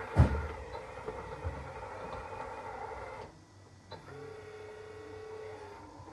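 Small electric drive motors of a radio-controlled model bulldozer whining, with a sharp knock just after the start. The whine cuts out for about half a second a little after three seconds in, then starts again at a steadier pitch.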